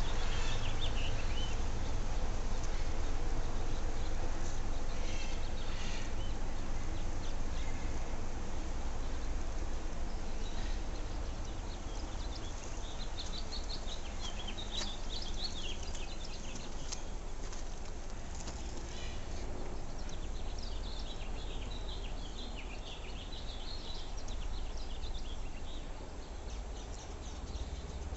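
Small birds chirping and twittering in scattered bursts over a steady low rumble.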